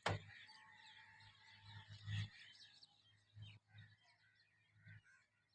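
Faint birds chirping in the background, with one sharp click right at the start and a few soft low thumps.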